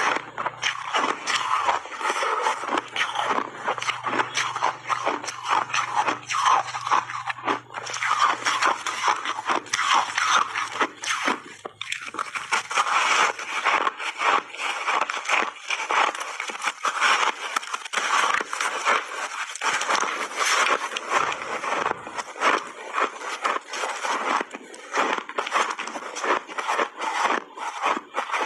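Dense crunching and cracking of large chunks of refrozen ice with frozen mixed berries being bitten and chewed, close to the microphones.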